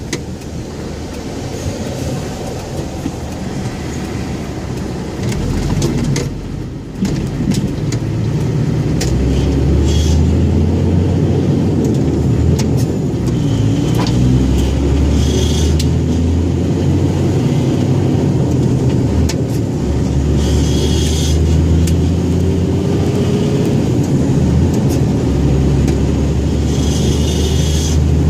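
Scania 114G 340 truck's 11-litre straight-six diesel engine running under load, with a brief drop in engine sound about six or seven seconds in and a slowly climbing engine note in the last seconds. Short hisses come now and then.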